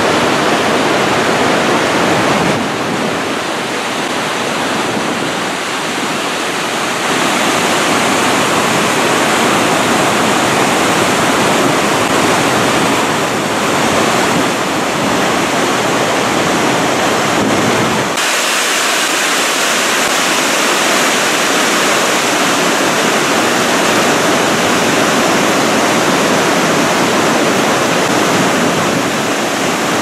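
Cauldron Snout waterfall on the River Tees: white water cascading over rock steps in a loud, steady rush. Its tone shifts abruptly three times.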